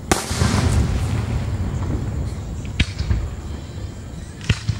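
Aerial firework shells bursting: a sharp bang right at the start, trailing off over about a second, then two more single bangs about three and four and a half seconds in.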